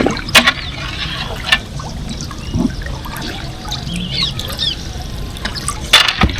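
Canoe paddle working the river water: splashing and trickling drips, with a few sharp clicks and faint bird chirps.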